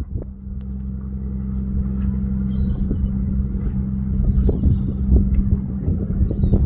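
Fishing boat's engine running steadily, a low even drone with occasional light knocks.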